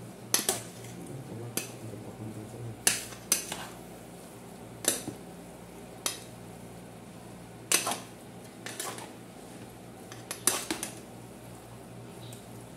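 Metal spatula and fork clanking against the side of an aluminium cooking pot while tossing noodles: sharp, irregular knocks about once a second, some in quick pairs.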